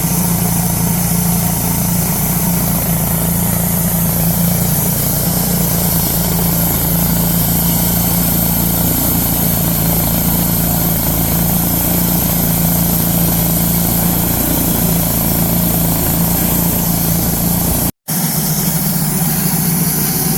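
Wood-Mizer LT-10 band sawmill running steadily while its blade saws a slab off the log. It cuts out for an instant near the end, then resumes.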